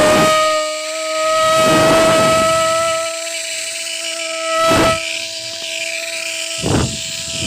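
Small electric motor of a homemade matchbox helicopter running with a steady high whine, rising slightly in pitch at first. Several brief rushes of air noise break in over it, the longest a second or two in.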